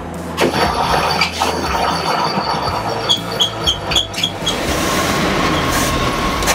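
A 1942 Ford COE's flathead V8 being cranked over on its 6-volt starter, turning over with an uneven rhythm that settles toward the end. The engine has not run in a long time and is being brought back to life.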